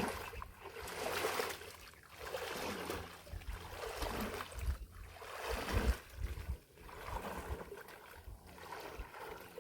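Water splashing and dripping in repeated swells as a gill net is hauled up out of the water, with low rumbling thumps beneath.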